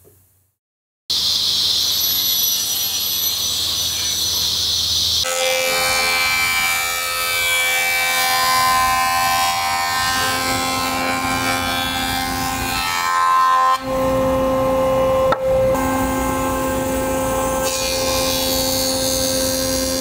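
Jointer running and planing a walnut board: the machine's steady tones over the noise of the cutterhead knives cutting the wood. It starts suddenly about a second in, and its sound shifts a few times as the board is fed across.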